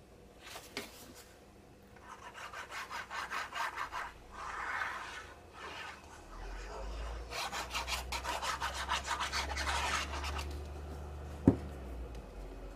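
Tip of a squeeze bottle of liquid craft glue scraping over paper in quick back-and-forth strokes as glue is spread, in two stretches of rasping. A single sharp knock comes near the end.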